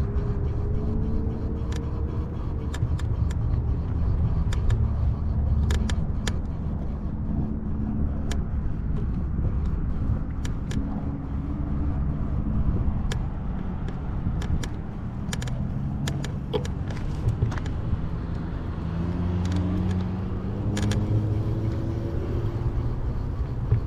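Road traffic passing nearby: a steady low rumble with engine tones that rise and fall as cars go by, and scattered sharp clicks.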